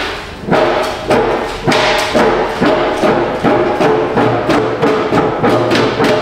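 Background music with a steady percussive beat.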